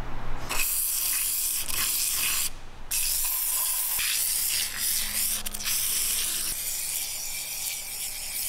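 Aerosol cleaner can hissing as it is sprayed through its straw nozzle onto carbon-fouled piston crowns. It comes in two long bursts, with a short break about two and a half seconds in.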